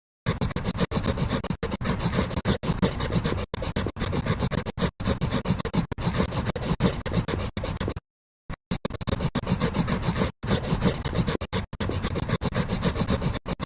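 A drawing tool scratching across paper in quick, continuous strokes, with many brief lifts between strokes. It stops for about half a second around the middle, then carries on.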